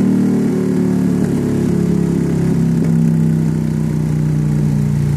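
A motorcycle engine running at a steady high idle, its pitch sinking slowly.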